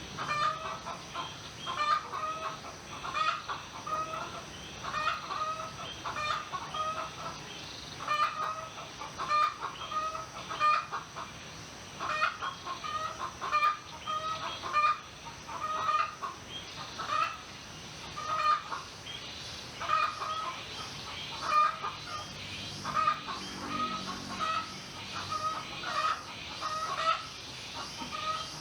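Domestic chickens clucking: short, pitched calls repeating about once or twice a second without a break.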